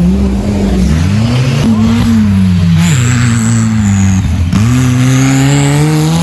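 Off-road vehicle engines revving, loud and uneven. At least two engines at different pitches rise and fall repeatedly as the throttle is worked.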